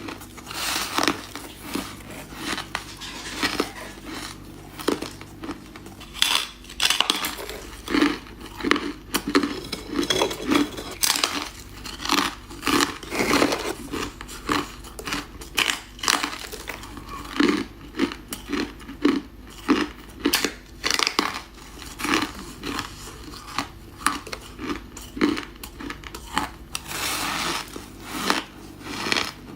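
A person biting and chewing ice: an unbroken run of sharp crunches, several a second.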